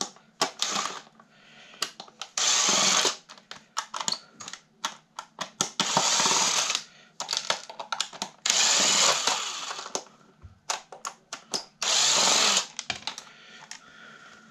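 Power drill-driver running in four short bursts of about a second each, backing screws out of a desk fan's housing, with clicks and clatter of small parts in between.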